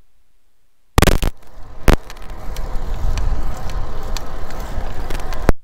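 Wind buffeting and road rumble on a bicycle-mounted camera's microphone while riding, with sharp knocks and clicks. It starts suddenly about a second in, with a loud knock shortly after, and cuts off suddenly near the end.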